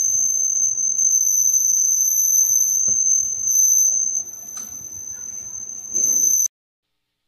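A small black electronic buzzer, driven through a BC547 transistor in an LDR light-sensor circuit, sounds one steady high-pitched tone. It cuts off suddenly about six and a half seconds in. A few faint handling knocks sit under the tone.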